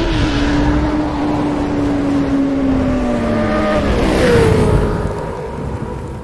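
Bajaj Pulsar NS 200's single-cylinder engine running, carrying an abnormal noise; its pitch shifts about four seconds in and it then eases off. The noise was first suspected to be the connecting rod but was traced to a loose camshaft bolt that let the timing gear on the camshaft slip out of place.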